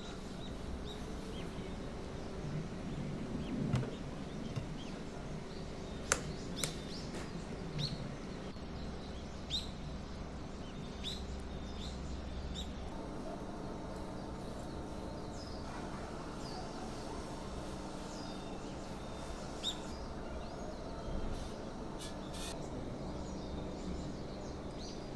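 Short, scattered bird chirps over a steady low hum, with a few sharp clicks in between.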